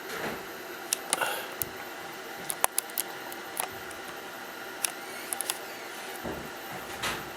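A scatter of light, sharp clicks and taps from small hard parts being handled, over a steady low hiss.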